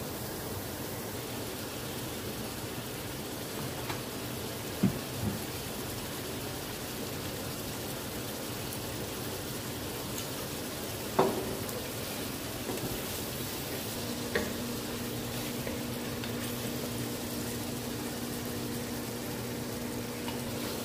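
Pork pieces steadily sizzling and frying in a nonstick pan, with a wooden spatula knocking against the pan three times as the meat is stirred. A low steady hum joins in about two-thirds of the way through.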